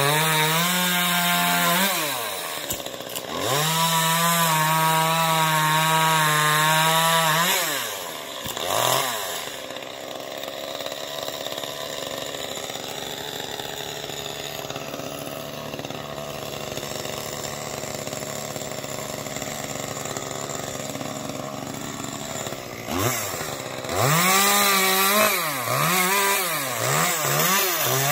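Chainsaw run at steady full throttle twice in the first eight seconds, then idling for about fifteen seconds. Near the end it is revved up and down in quick repeated bursts.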